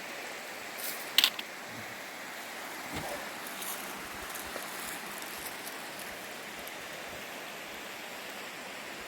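A creek's water running steadily over rocks, with a couple of sharp clicks about a second in.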